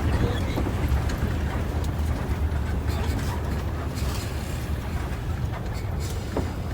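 Intercity bus driving along the road, heard from inside the cabin: a steady low engine and road rumble with a few light clicks and rattles.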